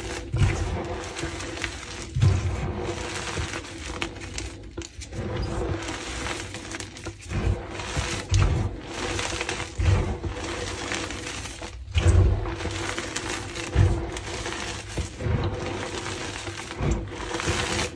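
Hands crushing and crumbling chunks of gym chalk coated in pink pigment powder: a continuous gritty crunching and sifting of powder and crumbs, with a soft thump each time the hands press down, every second or two.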